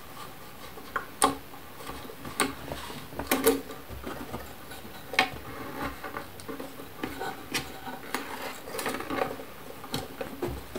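Slack violin strings being unwound at the pegs and pulled off the instrument, giving scattered light clicks, rattles and scrapes of string and metal against wood.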